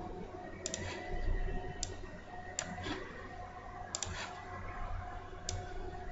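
Computer mouse clicking, about five single clicks spaced irregularly, over a faint steady hum.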